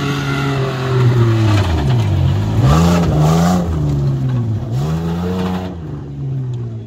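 Off-road 4x4's engine revving hard and easing off in cycles as the vehicle churns through a deep muddy rut. The revs drop twice, about two seconds and four and a half seconds in, and climb again each time, with a rush of noise around three seconds in.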